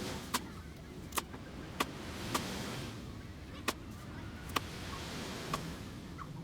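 Seven sharp, short knocks at uneven intervals, roughly one a second, over a rushing background noise that slowly swells and fades.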